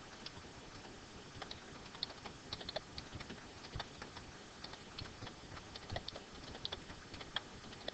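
Computer keyboard being typed on: a run of faint, unevenly spaced key clicks.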